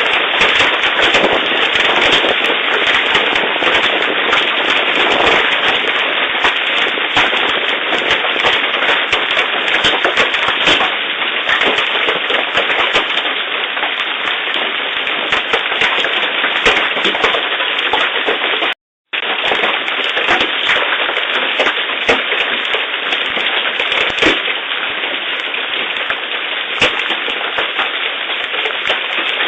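Large hailstones, 3 inches and more, pelting down in a dense, continuous rattle of sharp impacts mixed with rain. The sound drops out briefly about two-thirds of the way through.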